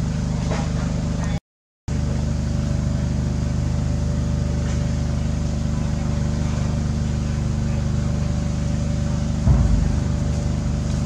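A steady low motor drone, like an engine running at constant speed. It cuts out for about half a second about a second and a half in, and a dull thump comes near the end.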